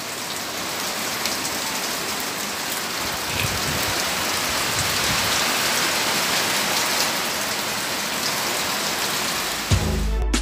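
Heavy rain pouring steadily onto corrugated metal roofing and wet ground. About three-quarters of a second before the end, music with a heavy beat cuts in.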